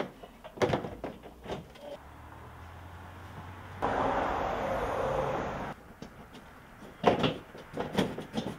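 Knocks and clicks of a car's plastic front bumper cover being pushed and snapped into place, in a cluster about a second in and another near the end. Between them, for a couple of seconds, is a steady hiss.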